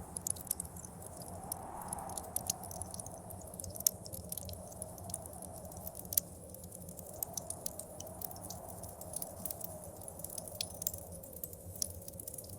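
Wood fire crackling with irregular sharp snaps and pops, over blizzard wind blowing in slow gusts whose pitch rises and falls.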